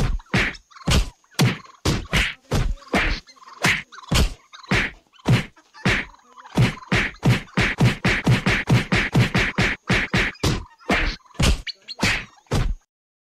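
Two turkeys fighting: a rapid series of sharp slaps and thuds, two to three a second and quicker in the middle, stopping abruptly near the end.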